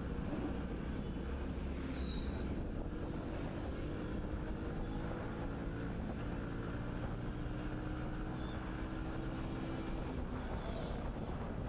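Motorcycle engine running at a steady cruising pace while riding, with wind and road noise on the bike-mounted microphone.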